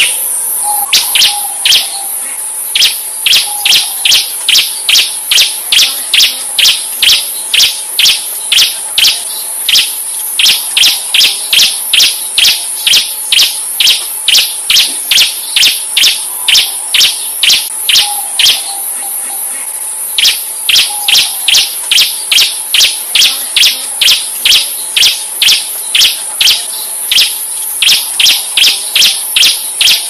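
Bar-winged prinia (ciblek) calling: a rapid run of sharp, repeated notes, about three a second, broken now and then by short pauses, over a steady high-pitched shrill.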